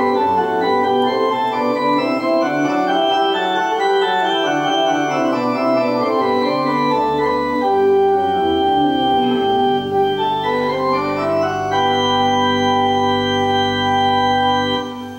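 Two-manual organ playing a quick-moving étude line over a held bass. It settles onto a sustained final chord about three quarters of the way through, and the chord is released at the very end.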